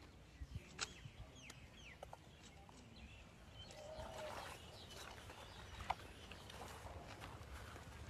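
Faint outdoor ambience: small birds chirping, with scattered clicks and soft rustling, the sharpest click about six seconds in.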